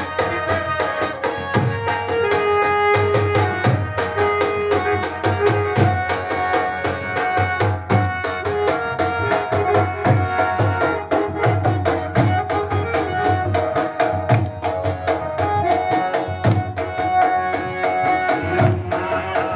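Live garba dance music from a small band, heard through loudspeakers. Hand drums keep a steady, repeating dance beat under a sustained melody line.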